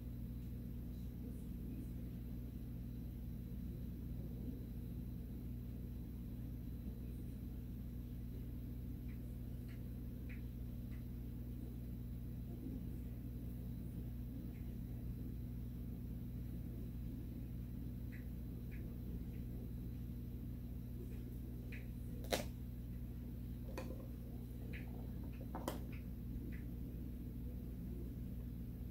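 Steady low hum of room tone, with a few faint short clicks, the sharpest about two-thirds of the way through.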